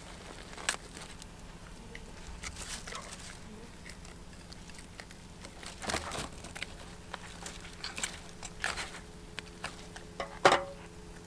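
Scattered scrapes, clicks and crinkles of perch being cleaned by hand: knife work on the fish and handling of a plastic bag. The loudest sharp click comes near the end, over a faint steady hum.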